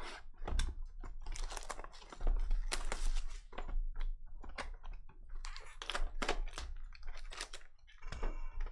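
Plastic wrap crinkling and tearing off a sealed Panini Recon basketball hobby box as it is unwrapped and opened by hand, a dense run of irregular crackles and rustles.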